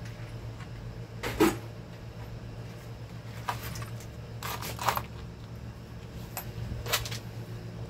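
A few light clicks and knocks of small metal parts being handled while a washer is picked out, the sharpest about one and a half seconds in, over a steady low hum.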